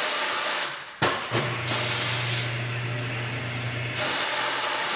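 Corghi Artiglio Master tire changer operating: loud hissing of compressed air at the start and again near the end, with a steady motor hum under the hiss for about three seconds in the middle.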